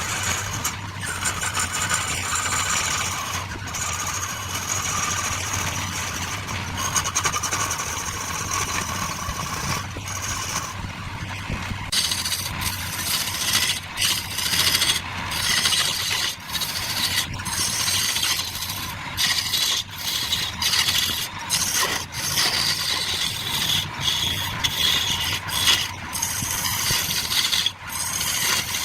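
Woodworking power tool running with a steady hum; about halfway through, a rough scraping with many quick clicks sets in, as a tool bites into the wood.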